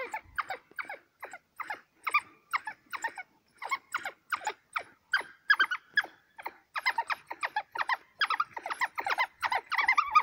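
African wild dogs twittering: a run of short chirping calls, two or three a second, that come thicker and faster over the last few seconds as the pack closes on a kudu.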